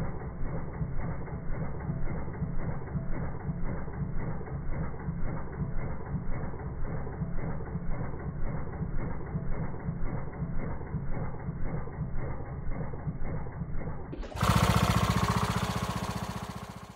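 Kohler Courage 20 mower engine running with an even, rapid pulsing, its valve clearances just readjusted; the sound is muffled, lacking highs. About 14 seconds in, a louder, fuller sound takes over and fades out at the end.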